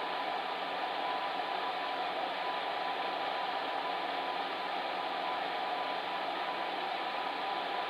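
Fan heater running steadily: an even blowing whoosh with a faint constant hum.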